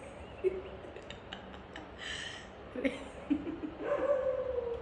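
Shih Tzu whining softly: a few short whimpers, then a longer whine that slowly falls in pitch near the end.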